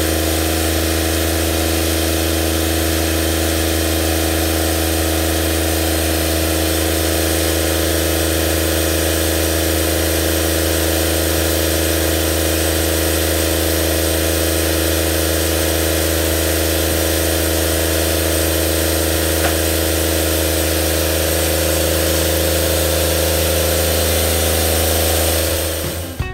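Wood-Mizer portable sawmill's engine running steadily at a constant speed, cutting off shortly before the end.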